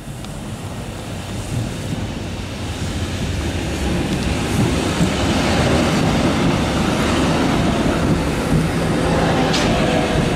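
A two-car Tatra tram approaches and passes close by, its wheels rumbling on the rails. It grows louder over the first few seconds, then stays loud as the cars go past.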